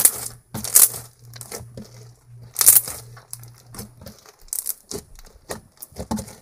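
Bubblegum foam slime full of foam beads being squished and stretched by hand, giving irregular crunchy crackles and pops. A few louder bursts come at the start, about a second in and near three seconds, then a quicker run of small clicks near the end.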